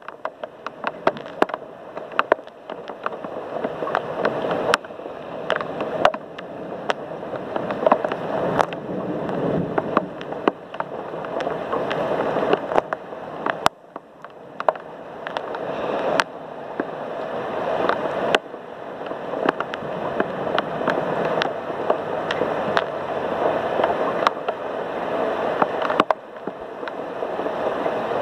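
Heavy thunderstorm rain pouring, a steady rush with many sharp drips and splashes ticking close to the microphone. The rush swells gradually and then drops suddenly several times.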